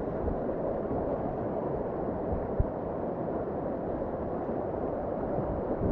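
Steady rush of whitewater on a river, with a single short knock about two and a half seconds in.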